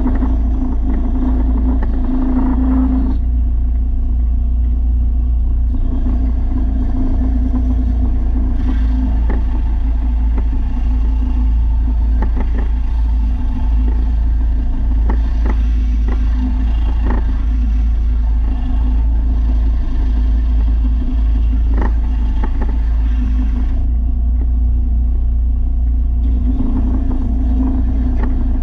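A motor running steadily at constant speed with a strong low rumble. There are a few sharp clicks in the middle and rougher stretches near the start and end.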